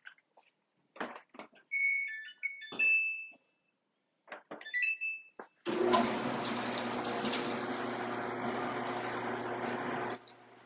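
Samsung clothes dryer: clicks and short electronic beeps from its control panel as buttons are pressed, then the dryer starts about five and a half seconds in with a sudden, steady, loud running noise with a low hum, the loud noise at issue. It cuts off about ten seconds in.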